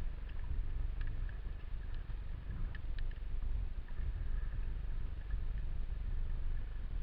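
Underwater ambience picked up by a camera in its waterproof housing while swimming: a steady low rumble and hiss of water movement, with a few faint scattered clicks.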